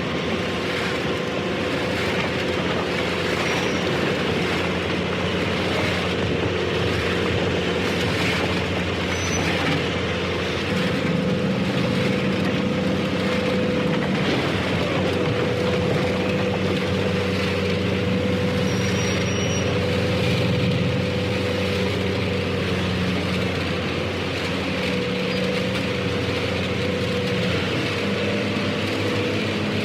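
Tractor harvester working, its engine running steadily at an even speed under a dense mechanical clatter, with no pauses or changes in pace.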